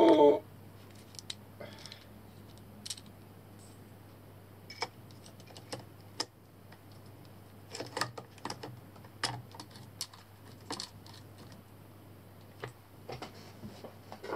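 Small metal clicks and taps of an IR torch's mount being handled and fitted onto a Picatinny rail, coming irregularly in small clusters.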